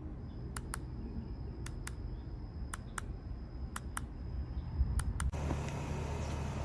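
Sharp clicks in pairs, about one pair a second, over a low rumble with a faint steady high tone. Near the end the sound cuts suddenly to a denser, steady rumbling noise.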